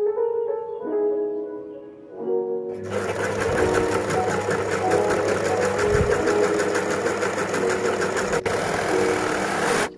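Overlock machine (serger) running steadily at speed as it stitches and trims a raw fabric edge, starting about three seconds in and stopping abruptly just before the end. Light background music plays throughout.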